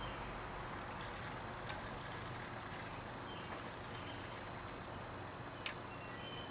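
Quiet outdoor background with a few faint bird chirps, and one sharp click about five and a half seconds in as the stopped single-cylinder Witte diesel engine's controls are set by hand.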